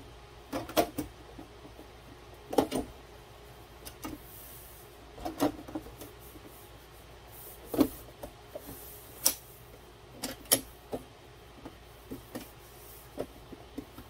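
Sheet-metal top cover of a Dell DX720 server chassis being set on and slid into place by hand: about a dozen scattered metallic clicks and knocks, some in quick pairs, as the lid is seated and latched.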